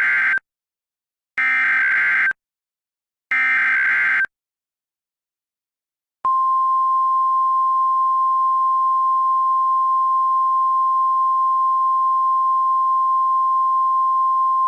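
Emergency Alert System SAME header: three short screeching data bursts, about a second each with one-second gaps. After a pause of about two seconds comes the NOAA Weather Radio single-pitch 1050 Hz warning alarm tone, held steady for about nine seconds, announcing a tornado watch.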